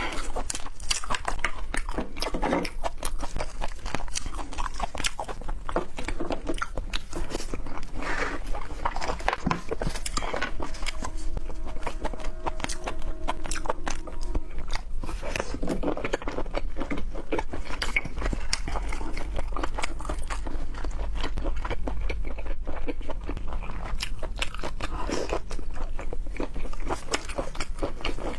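Close-miked eating: a person biting and chewing food with wet mouth smacks and crunches, in a dense, irregular stream.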